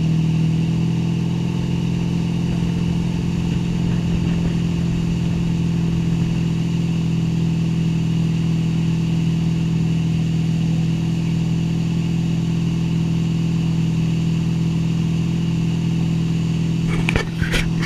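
Motorboat engine running steadily at speed, a constant low drone over the rush of water and wind. A few sharp knocks near the end.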